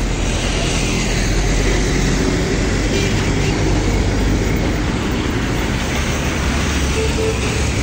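Steady road traffic noise from cars and buses passing close by, a continuous rumble and hiss of engines and tyres.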